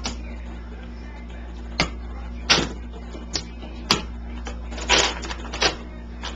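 Nerf Vulcan EBF-25 toy blaster being cocked by hand in single-shot mode: about six sharp plastic clacks at uneven intervals as the ammo belt advances.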